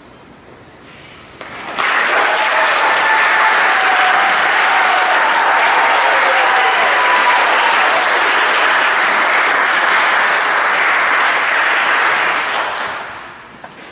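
Wedding guests applauding, breaking out suddenly about two seconds in as the couple kisses, holding steady and dying away near the end.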